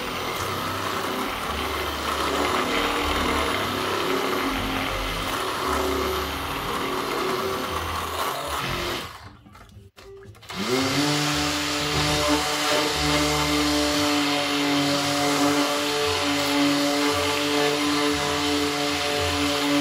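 Philips immersion blender running in a bowl of melted butter and sugar. It stops about halfway through, then restarts with a short rising whine as the motor spins up and runs steadily again.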